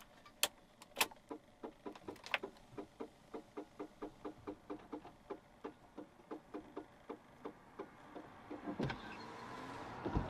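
Rapid, regular ticking from the camper van's windscreen-wiper motor area, about three clicks a second, with two louder knocks near the end. It is the sign of a stuck wiper contactor that keeps trying to send the motor its impulse.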